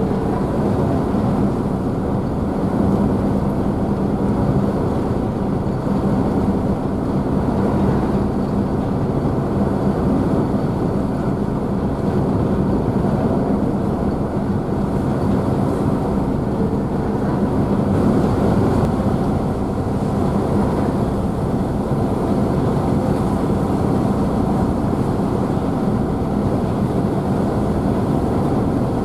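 Car ferry's engines running with a steady low hum, mixed with the continuous rush and spray of the wake churning behind the ship.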